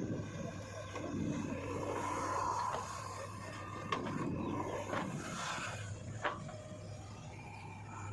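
Heavy machine engine running steadily, with two sharp knocks, about four seconds in and again about six seconds in.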